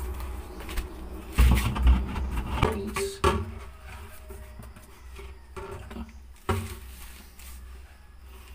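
Irregular knocks, clicks and rubbing as a short PVC pipe is handled and pushed into a sink's drain opening, with a few heavier thumps about one and a half, two, three and six and a half seconds in.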